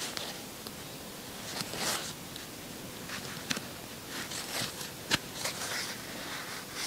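Soft rustling of yarn and a crochet hook as stitches are worked, with a few light clicks, the sharpest about five seconds in.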